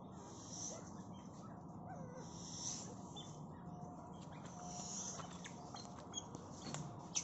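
A bird's bluffing threat display: short hissy bursts repeated about every two seconds, with a few faint short calls.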